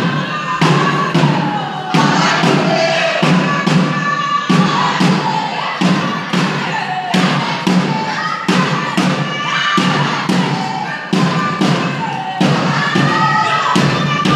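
A group singing live over a steady thudding beat, about two strokes a second, in a traditional Tsonga performance.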